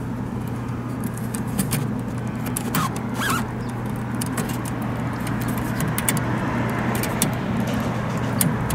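Small screwdriver clicking and scraping against the retaining screws and plastic of a headlight housing while fastening an HID xenon bulb in place, with a short squeak about three seconds in. A steady low hum runs underneath.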